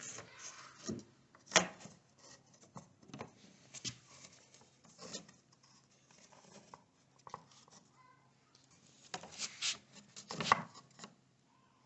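Pieces of wooden baseboard being handled and set against each other: scattered knocks and rubbing scrapes, the sharpest about a second and a half in and a cluster of knocks around ten seconds in.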